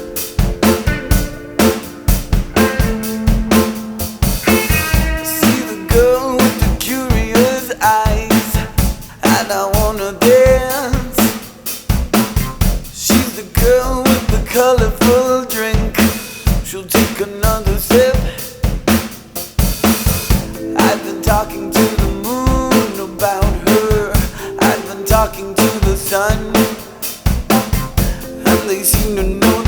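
Instrumental rock music with a full drum kit playing a steady beat of snare, bass drum and hi-hat. Sustained bass notes and a bending melodic lead line run over the beat.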